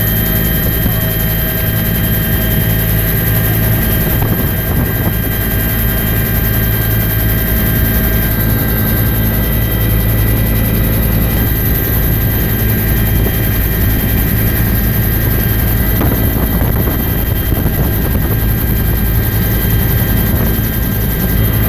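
Bell UH-1 Huey helicopter in flight, heard from inside the cabin: a steady, loud low drone of the main rotor with several thin steady whines from the turbine over it.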